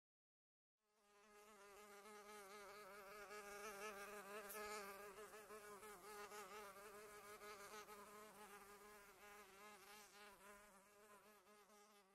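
Faint buzzing of a housefly, its pitch wavering up and down as it flies about. It fades in about a second in and runs until it stops abruptly at the end.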